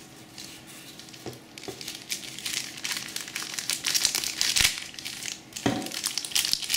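Clear plastic packaging crinkling as it is handled and pulled open, faint at first and getting louder about two seconds in, with a couple of sharp clicks.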